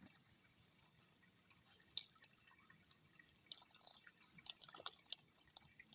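Clusters of short wet clicks and smacks from a young dog's mouth biting and chewing at something: a single one about two seconds in, then a run of them from about three and a half to five and a half seconds in.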